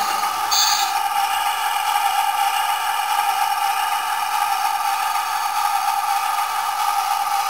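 ESU LokSound decoder's diesel engine sound playing through the model locomotive's small 23mm speaker, running steadily as the model moves off under throttle, thin and without bass. A short hiss sounds about half a second in.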